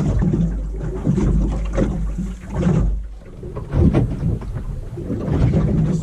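Sounds aboard a small fishing boat on the water: an uneven low buffeting that swells and dips, like wind on the microphone.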